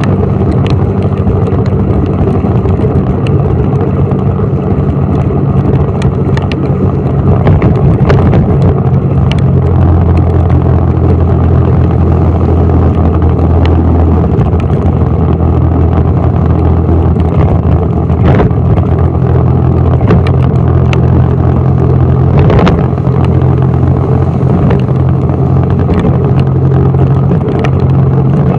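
Engine of a road vehicle running steadily while driving, a low drone that shifts in pitch about a third of the way in, over road noise from the wet road, with occasional sharp ticks.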